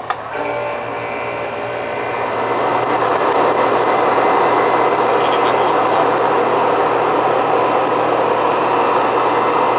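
Late-1960s or early-1970s Comfort Air Twin window air conditioner: a click as the control is switched to high cool, then the compressor kicks on and the unit's running noise builds over a few seconds to a loud, steady hum and rush of air.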